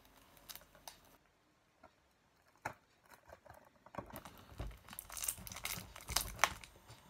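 Plastic shrink-wrap on a Blu-ray case crinkling and tearing as fingers pick at it to get it open, with scattered small clicks. Sparse and faint through the middle, busier over the last few seconds.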